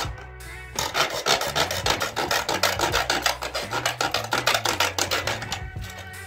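A red plastic electrical back box being cut by hand with quick, rapid back-and-forth strokes. The cutting starts about a second in and stops shortly before the end.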